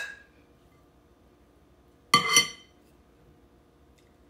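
A metal spoon clinking against a ceramic plate and a glass bowl: one sharp ringing clink at the start, then two quick ringing clinks about two seconds in.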